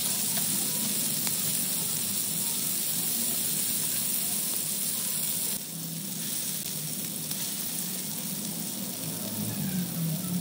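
Masala-coated chicken pieces sizzling steadily in hot oil in a frying pan, a little quieter after about five and a half seconds.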